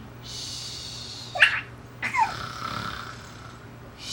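Mock snoring: long, breathy, hissing breaths. A short, high squeal cuts in about one and a half seconds in, and a brief falling vocal sound comes about two seconds in.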